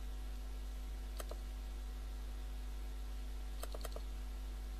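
Computer mouse clicking: a single click about a second in, then a quick run of three clicks near the end, including a double-click. A steady low electrical hum runs underneath.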